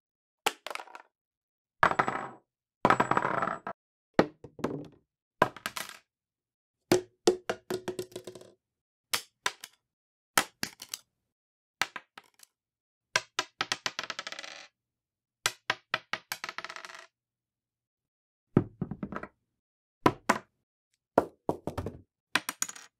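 A run of separate recordings of small objects dropped onto a hard wooden floor or desk, among them a crushed aluminium beer can, a credit card and a wicker fruit basket. Each drop is a short cluster of bounces, clatters and rattles that rings briefly and dies away, with silent gaps between drops.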